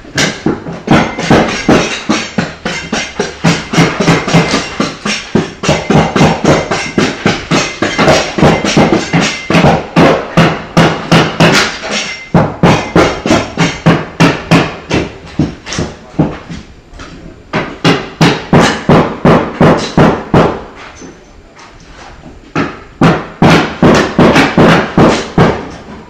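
Hammer blows struck in fast runs of about four to five a second, broken by a few short pauses.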